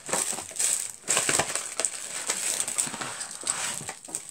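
A bag of jewelry being opened and handled: a continuous irregular rustle with small clicks.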